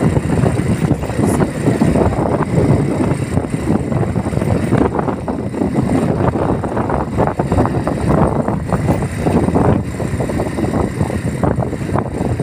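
Noise of a moving vehicle with wind buffeting the microphone: a dense low rumble that rises and falls without a break.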